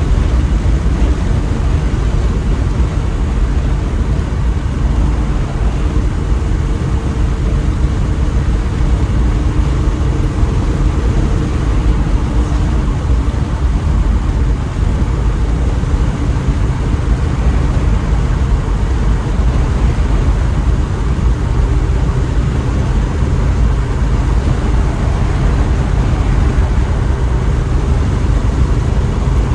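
Small-block Chevy 350 V8 running at a steady cruise through its new exhaust while the car drives, a continuous low rumble with an even engine note and road noise.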